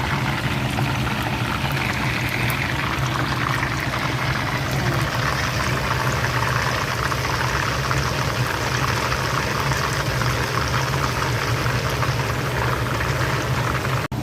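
Whole chicken deep-frying in hot oil, sizzling and crackling steadily, with a steady low hum underneath.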